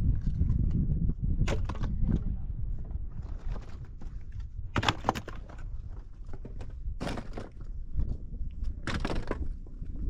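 A steady low rumble with a handful of irregular sharp knocks and scuffs, the clearest about five seconds in and again near seven and nine seconds.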